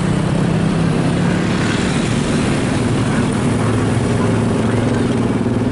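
Bus engine running, with its pitch dropping over the first few seconds and rising slightly near the end.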